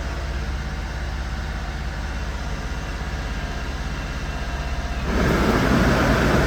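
1994 Honda Acty kei truck's small three-cylinder engine idling steadily. About five seconds in, the cab's heater blower fan comes on with a steady rush of air and the sound gets louder: light back-pressure on an ignition key that doesn't spring back fully restores the truck's electrical power.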